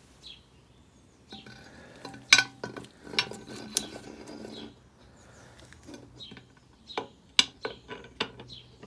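Steel MGB half shaft being slid by hand into the rear axle casing: a scraping slide of metal on metal, then several sharp metallic clinks as it goes in.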